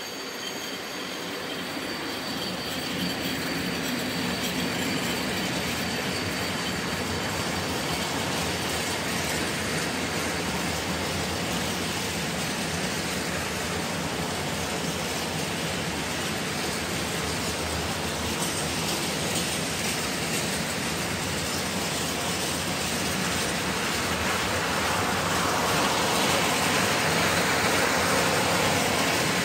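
Freight train of empty flat wagons rolling past behind a PKP Cargo electric locomotive, a continuous rumble and clatter of wheels on rail. A thin high whine sounds in the first second or so, and the noise grows louder near the end.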